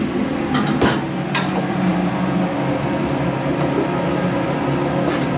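Steady mechanical hum of a noodle-shop kitchen under its exhaust hood, with a few sharp clinks of ladles and bowls in the first second and a half and once more near the end.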